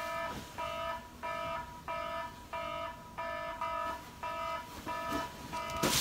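Wake-up alarm sounding a repeating electronic beep of several stacked tones, about three beeps every two seconds, going unanswered. A sharp knock comes near the end.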